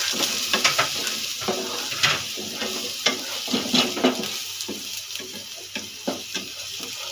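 Chopped onions and garlic sizzling in oil in a nonstick wok while a wooden spatula stirs and scrapes them. The spatula knocks against the pan over and over, loudest in the first four seconds and lighter after that.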